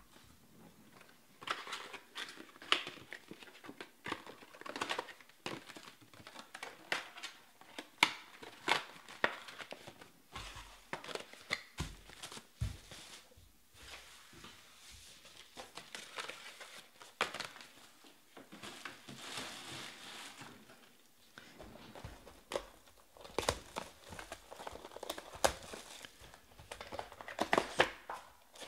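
Trading-card pack wrappers crinkling and tearing as packs are ripped open by hand, with irregular sharp crackles and the cards being handled.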